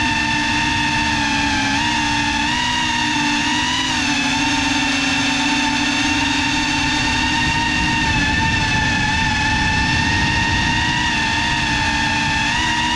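FPV quadcopter's brushless motors and propellers whining steadily, heard from the camera on board the drone, the pitch rising and dipping slightly a few times as the throttle changes, over a rush of low noise.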